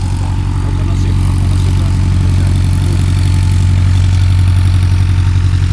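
Piston engine idling steadily, gradually getting a little louder.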